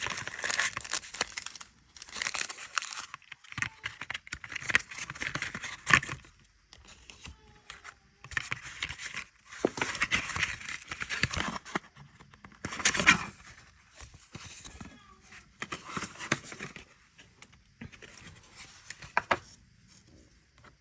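Paper packaging being unwrapped by hand: rustling, crinkling and tearing in a series of bursts with short pauses between them.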